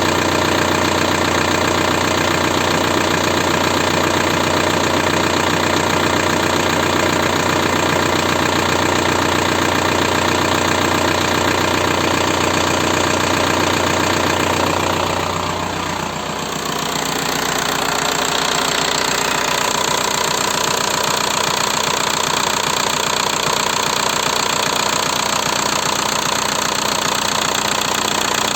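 Volkswagen 1.9 TDI four-cylinder turbodiesel running with a knock, which the owner puts down to the hydraulic lifters and piston slap. The sound dips briefly and changes in tone about halfway through, then runs steadily again.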